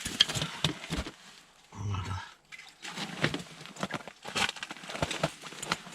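Irregular wet slaps, knocks and clicks as a freshly landed burbot is handled on the ice, with a short low grunt-like sound about two seconds in.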